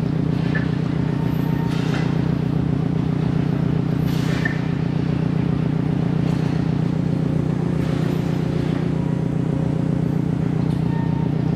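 A steady low engine hum with an even pulse, holding the same pitch and level throughout.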